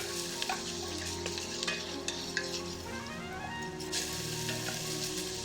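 Chopped onions and peppers sizzling steadily in hot oil in a pot as they sweat, with a few light spoon clicks, under soft background music.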